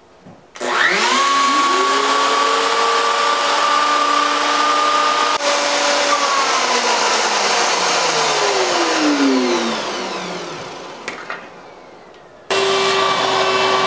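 Festool OF 1400 EQ plunge router with a 1/8-inch downcut spiral bit: the motor spins up about half a second in and runs with a steady whine while plunging holes into the wood to waste out a mortise, then winds down over several seconds. Near the end it is abruptly running at full speed again.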